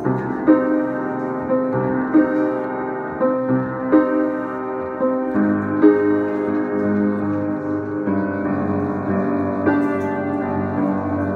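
Upright piano being played: single notes and chords struck about once or twice a second and left to ring.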